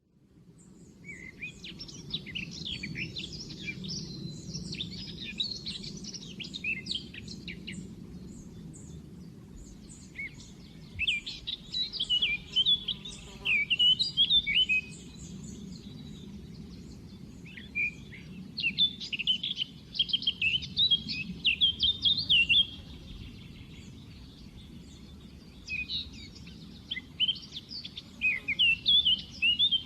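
A songbird singing in four long bouts of rapid, high twittering notes a few seconds apart, over a steady low background rumble.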